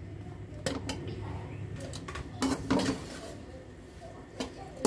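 Steel ladle scraping and clinking against a steel wok as a coarse ground nut-and-spice mix is stirred in ghee, with irregular sharp clinks among the scraping.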